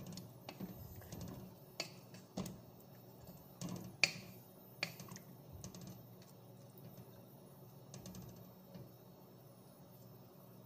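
Wooden spatula stirring chicken curry in a pot, with scattered light knocks and taps of the spatula against the pot, the loudest about four seconds in; the clicks thin out over the second half.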